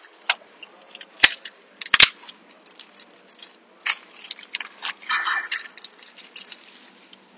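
Workbench handling noise from a seal installer and small transmission parts: a few sharp clicks and knocks in the first two seconds, then a stretch of scraping and rustling as the installer is picked up and cleaned.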